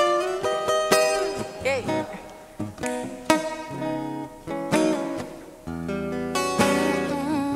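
Steel-string acoustic guitar playing an instrumental passage of picked notes and strummed chords, with a few notes bent in pitch.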